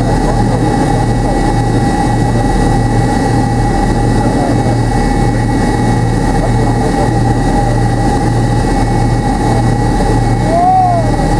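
Cabin noise of a McDonnell Douglas MD-83 moving along the runway on the ground: its rear-mounted Pratt & Whitney JT8D turbofans run steadily at low power, a low pulsing rumble under a steady whine. Near the end there is a brief squeak.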